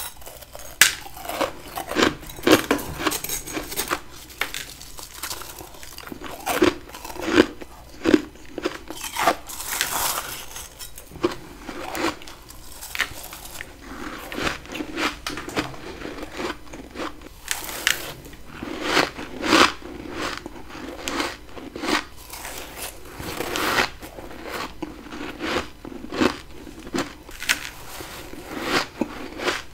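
A person biting into and chewing frost ice that has built up in a freezer from a humidifier, giving crisp crackling crunches. A loud bite comes about every second, with finer crackling in between.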